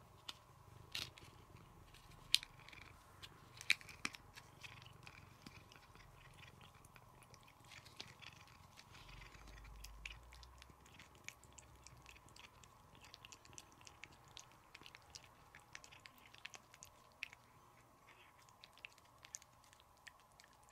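A gray tabby cat licking paste from a hand-held Churu squeeze-tube treat: a run of quick, wet tongue clicks and mouth smacks, with a few louder smacks in the first few seconds.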